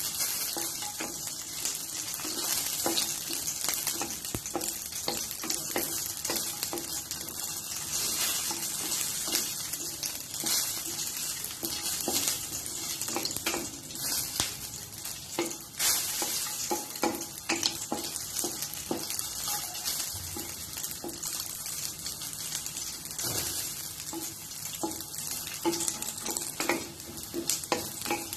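Green chillies and garlic cloves sizzling in hot oil in a kadai, with a continuous frying hiss. A wooden spatula stirs them, scraping and tapping the pan many times.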